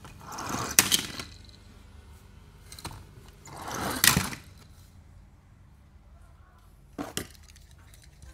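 Toy cars being handled and clattered together: a brief rising rush ends in sharp clacks about a second in, the same again about four seconds in, then two quick knocks near the end.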